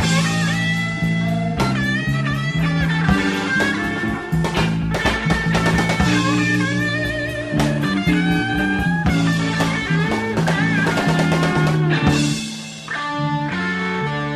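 Electric blues band playing: a lead electric guitar with bent, wavering notes over a bass line and drum kit. The music dips briefly near the end, then carries on.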